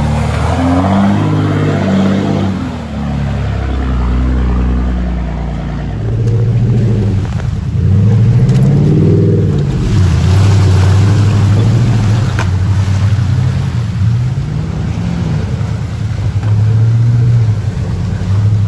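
Dodge Ram pickup engine revving hard and easing off again and again, pitch rising and falling, as the truck drives through deep mud.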